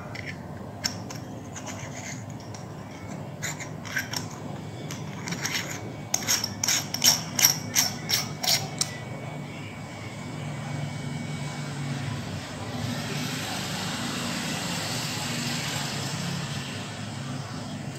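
Small threaded lens parts, a UV/IR-cut filter and an M12 adapter tube, being handled and screwed together: scattered clicks, then a quick run of clicks and scrapes in the middle, followed by a steady rustling hiss over the last few seconds.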